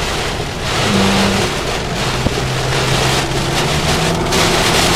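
Car driving in rain, heard from inside the cabin: a steady engine hum under a constant hiss of rain and wet road noise.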